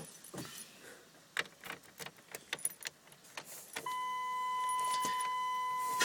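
A Chevy Tahoe's key ring jangling and clicking against the steering column as the key goes into the ignition. About four seconds in, a steady electronic warning tone from the truck's dash sounds and keeps going.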